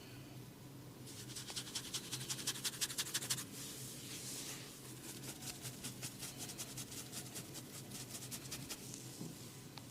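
Hair and scalp being scratched in quick, evenly spaced strokes during a head massage: two runs of rapid scratching with a short softer rub between them.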